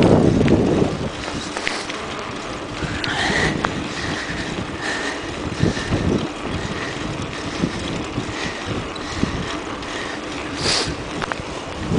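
Wind buffeting the microphone while riding a bicycle, with a strong gust at the start and the steady rush and rattle of the ride. A faint short high squeak recurs about once a second.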